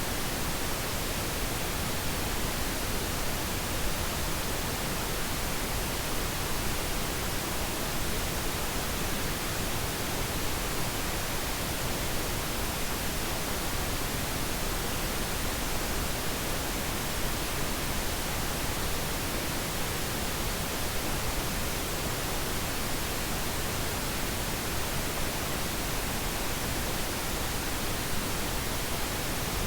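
Steady pink noise: an even, unbroken hiss.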